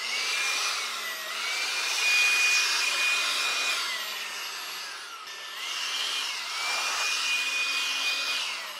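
Handheld cordless blower running, a high motor whine over a rush of air, blowing morning dew off a galvalume steel roof. It eases off about halfway, speeds up again and eases off once more near the end.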